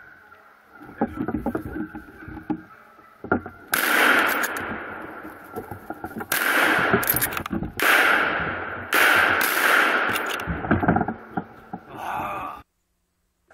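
Four rifle shots in quick succession, about one and a half to two and a half seconds apart, each followed by a long fading echo.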